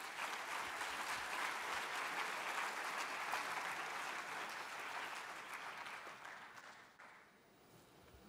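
Audience applauding a prize winner's name, the clapping dying away about seven seconds in.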